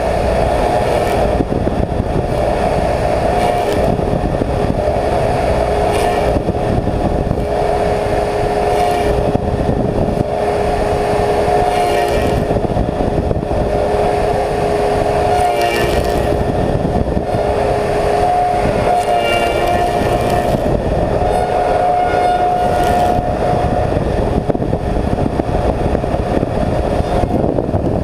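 Slab surfacing machine running its cutter head with six replaceable insert knives, surfacing a willow slab: a loud, steady machine noise with a constant whine.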